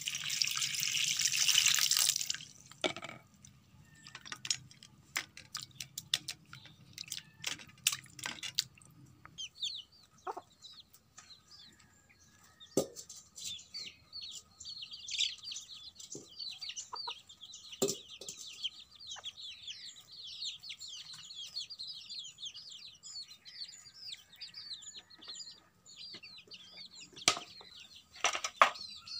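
Water poured from a jug splashing onto a steel plate for about the first two seconds, the loudest sound. After that come scattered sharp clicks and clinks of handling, with birds chirping steadily in the background through the second half.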